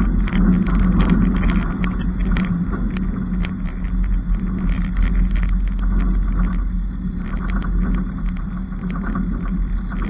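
A Cessna 152's four-cylinder Lycoming O-320 engine and propeller running steadily at low, idle-level power, with frequent irregular sharp ticks on top.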